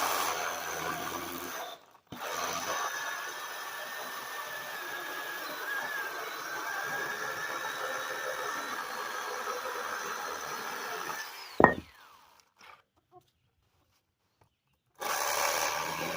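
One-handed mini chainsaw cutting through oak. It runs briefly, pauses about two seconds in, then runs steadily for about nine seconds. A sharp knock comes as it stops, and it starts cutting again near the end.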